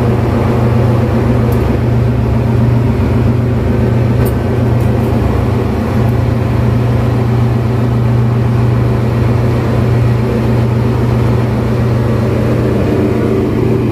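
Loud, steady drone of ship's engine-room machinery with a strong low hum, heard inside the main engine's scavenge space.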